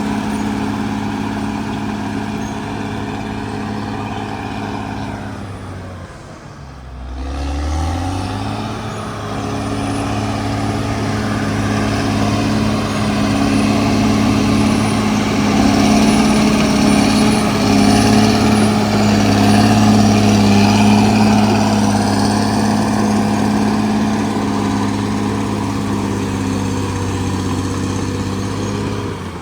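CAT D6R XL bulldozer's diesel engine running steadily under load. About six seconds in it throttles down briefly, then revs back up and runs louder for the rest of the stretch.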